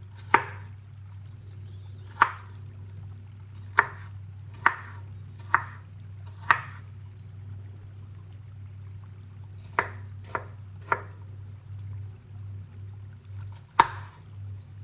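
A knife chopping on a cutting board: about ten single sharp chops, irregularly spaced from half a second to three seconds apart, over a steady low hum.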